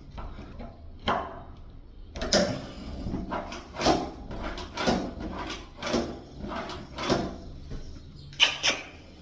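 Cordless drill-driver driving a screw straight into a wooden door without a pilot hole, run in a string of short bursts a little under one a second, with a sharp click near the end.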